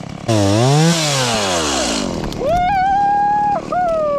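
A chainsaw revs up and back down, then two long high-pitched calls follow, the first held steady and the second sliding downward.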